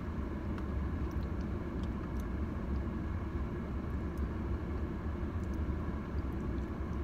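Steady low rumble inside a car, with a few faint clicks.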